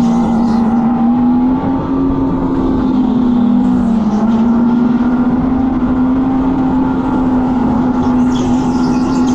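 Electric go-kart driving at a steady, capped speed: a loud, steady droning tone that shifts slightly up and down in pitch, over rushing noise.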